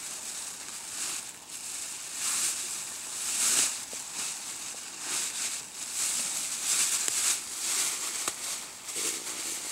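Rustling and crinkling that rises and falls in swells, with a few faint ticks.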